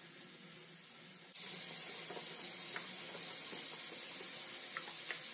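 Kitchen faucet running, its stream splashing over cherry tomatoes held in their plastic container as they are rinsed. The water sound gets louder about a second in, with a few light clicks of the plastic.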